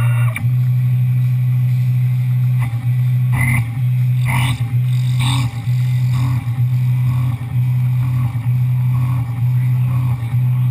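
Tormach 1100M CNC mill cutting under flood coolant: a steady low hum from the machine, with coolant spraying. A higher whine cuts off just after the start, and a few sharper cutting noises come between about two and a half and five and a half seconds in.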